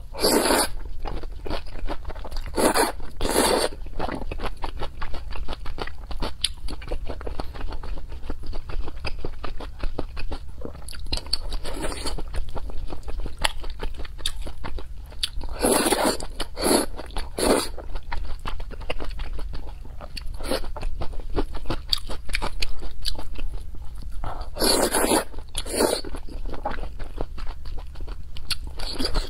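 Close-miked mukbang eating of thick chewy noodles in chili sauce: wet chewing and mouth sounds with many small clicks. Four louder slurps come as mouthfuls of noodles are sucked in, near the start, about three seconds in, around sixteen seconds and around twenty-five seconds. A steady low hum runs beneath.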